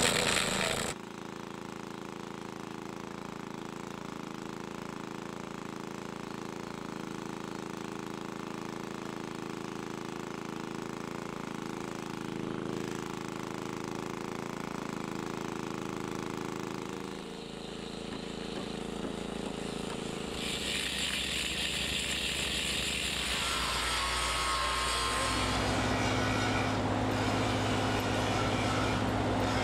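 Steady hum of running machinery, with several steady tones. It changes abruptly a few times, at about 17, 21 and 25 seconds in, and turns louder and hissier from about 21 seconds.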